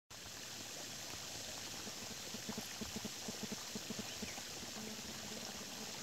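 Steady outdoor hiss, with a run of short, low pulsed notes, about six a second, from about two to four seconds in.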